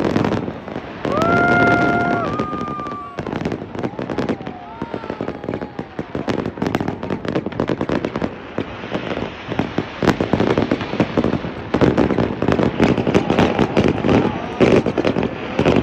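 Aerial fireworks bursting in a rapid barrage of bangs and crackling, which grows denser and more continuous about six seconds in.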